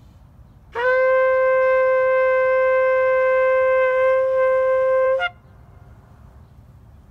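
A long spiralled shofar blown in one long steady blast of about four and a half seconds, scooping up into the note at the start and breaking briefly upward as it ends.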